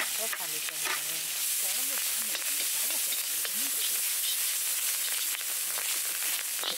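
Shredded dried squid and dried scallop sizzling steadily in hot oil in a wok, stirred with a long spatula.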